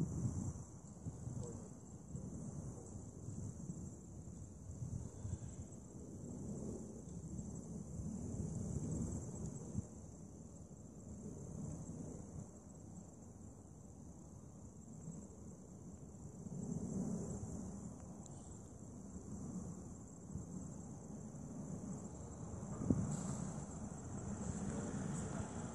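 Steady high-pitched insect chorus, trilling without a break, over a low uneven rumble that swells and fades every few seconds.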